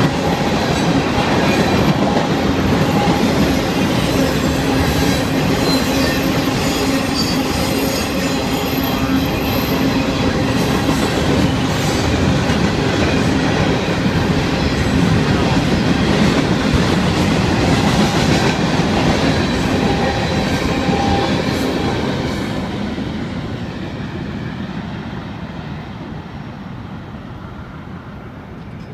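Freight train of tank cars, hoppers and boxcars rolling past, a steady rumble of steel wheels on the rails. It fades gradually over the last several seconds as the end of the train goes by.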